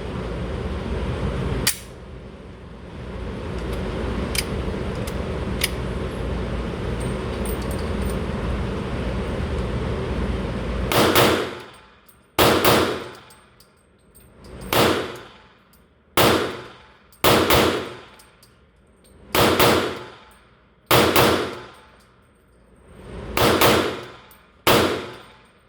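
Steady background noise, then about ten pistol shots from a Glock handgun, fired one to two seconds apart. Each shot rings out briefly, and one pair comes as a quick double tap.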